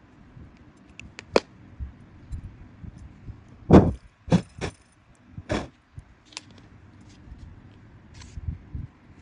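Handling of a small wire-and-bead spinner lure and pliers: about half a dozen sharp metal clicks and taps, with light rustling between them. The loudest click comes about four seconds in.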